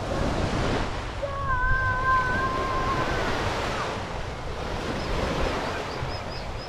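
Wind buffeting the microphone over lake water and small waves. About a second in, a steady high two-note tone sounds for about two seconds.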